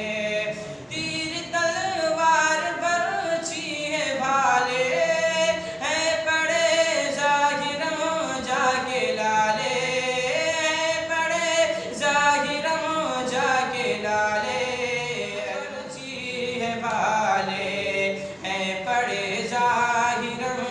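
Naat Sharif recitation: a voice singing Urdu devotional verse unaccompanied, in long melodic lines with held and bending notes.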